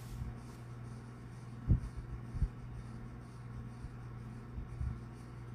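A faint steady low hum, with two short dull thumps about two seconds in and a couple of softer ones near the end.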